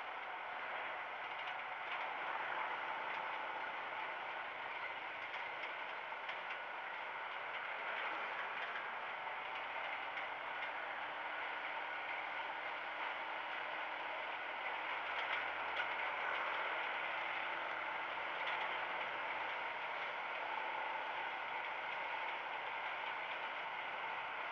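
Steady riding noise from a motorcycle on the move: the bike's engine, tyre roar and wind on the camera's microphone. A truck's engine is running close ahead.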